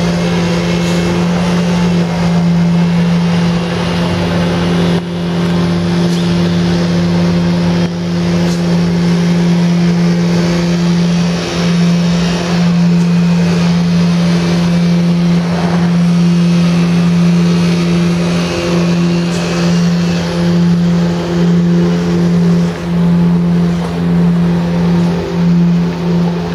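A construction-site engine running steadily with a constant, pitched drone, over street and work-site noise. Its loudness pulses about once a second near the end.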